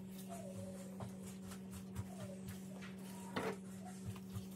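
Steady low hum in a kitchen, with scattered soft taps and a sharper click about three and a half seconds in as pizza toppings are handled. Faint whines that fall in pitch sound twice over the hum.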